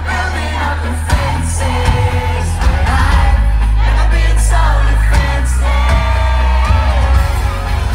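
A live pop-rock song played by a band with a singer, heard from the crowd through a phone's microphone: a sung melody over loud, bass-heavy drums and guitars.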